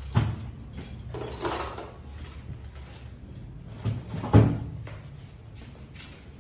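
A few knocks and clunks, the loudest about two-thirds of the way in, like a car door being worked, over a steady low hum.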